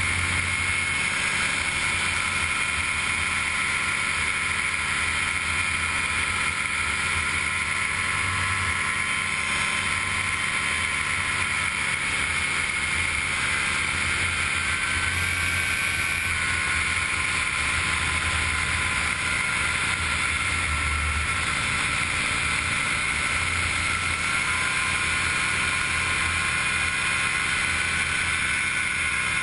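Gyrobee gyroplane in flight: its engine drones steadily, with wind rushing over the microphone. The engine's pitch shifts slightly a couple of times.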